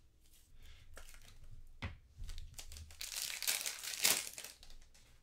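Foil wrapper of a 2022 Topps Tribute baseball card pack crinkling as it is torn open, loudest about three to four seconds in.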